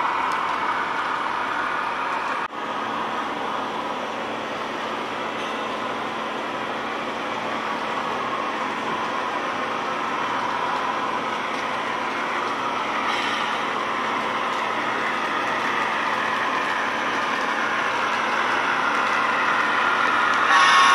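HO scale model train running on the layout's track: steady rolling noise of the cars and locomotives, growing gradually louder as the lead locomotives come closer. The sound breaks off briefly about two and a half seconds in.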